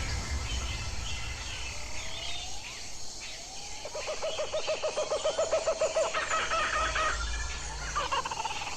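Birds calling: two rising whistled notes, then a fast run of repeated notes, higher chattering notes near the end of that run, and a wavering call near the end.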